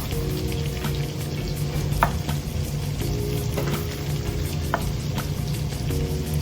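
Food frying and sizzling steadily in a pot, with a few sharp clicks about two seconds in and near the end.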